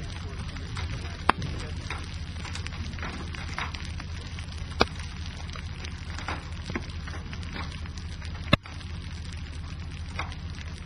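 Hail and rain falling, with scattered sharp ticks and clicks over a steady rush of noise and three louder knocks.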